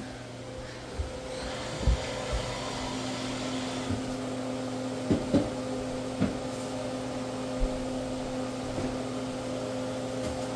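Steady hum of a household motor or appliance, getting a little stronger about three seconds in, with a few soft thumps scattered through it.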